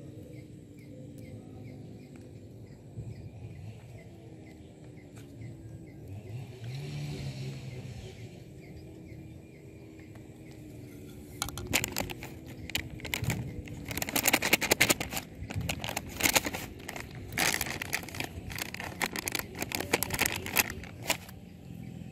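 Crackling and clicking of hard plastic being gnawed by a young macaque biting a white plastic cake utensil: quiet at first, then a rapid run of sharp cracks from about halfway through.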